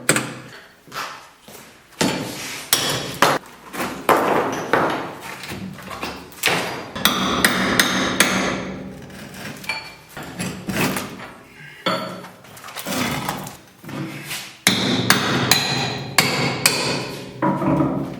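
Hammer blows in demolition work, many sharp strikes at an irregular pace, some in quick runs, with rougher scraping and clattering between them.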